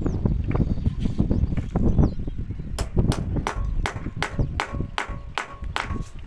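Hammer blows on metal, about three a second with a short ring after each, starting about three seconds in, during solar panel mounting work. Before them, low rumbling and scattered knocks of handling.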